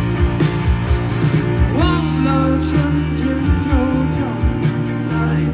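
Live band music with guitar, a steady beat and a low line, with a sung melody coming in about two seconds in.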